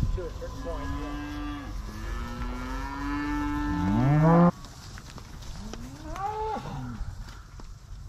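Beef cattle mooing: one long moo of about four seconds that grows louder and cuts off suddenly, then a shorter moo about two seconds later.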